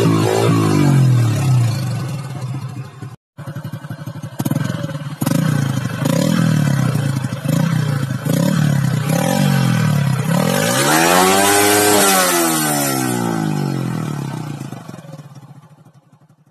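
Motorcycle exhausts revved for a sound test: first one bike's exhaust blipped up and down, then, after a brief break, a second motorcycle's exhaust revved in a string of short throttle blips and one long rev up to high rpm and back down, fading out near the end.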